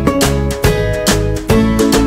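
Background music: a plucked guitar tune with a bass line and a steady beat.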